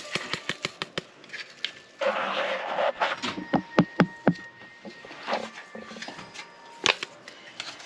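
A paper yeast packet being emptied and handled over a stainless steel mixing bowl: a run of light clicks and taps, with a burst of paper rustling about two seconds in.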